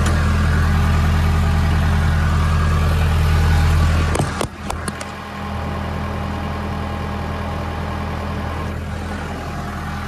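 Case 580L backhoe loader's four-cylinder diesel engine idling steadily. A little after four seconds in the sound drops and a few sharp knocks are heard, then the idle carries on more quietly.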